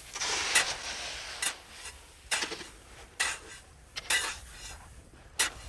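Hand tools scraping and scooping through a heap of coarse sea salt, with a gritty scrape about once a second, six in all.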